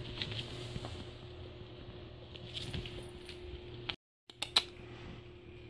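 Faint scratching and clicking over a steady low hum. The sound drops out for a moment about four seconds in, then a few sharp clicks follow.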